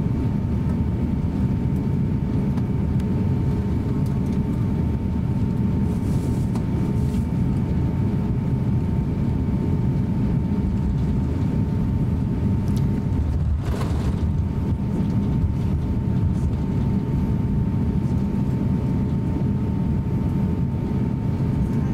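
Cabin noise aboard an Airbus A350-900 taxiing: a steady low rumble of its Rolls-Royce Trent XWB engines at taxi power with a thin steady whine above it. A brief whoosh comes about fourteen seconds in.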